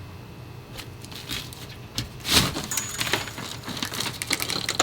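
Irregular scraping, cracking and knocking of a wall being cut and broken through, with the loudest crack about halfway.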